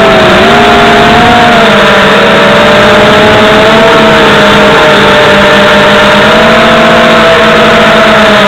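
FPV racing quadcopter's electric motors and propellers buzzing steadily, the pitch dipping and rising slightly with throttle changes.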